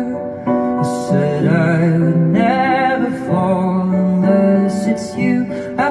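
Background music: a slow song with a voice singing long, wavering held notes over instrumental backing.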